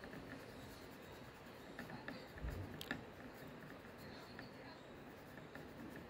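Faint scratching of a flat paintbrush stroking and dabbing across a textured canvas board, with a few light ticks and a soft low bump about two and a half seconds in.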